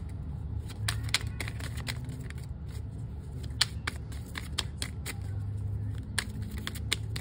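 A deck of Tarot of a Moon Garden cards being shuffled by hand, with quick, irregular clicks and flicks of cards slipping against each other.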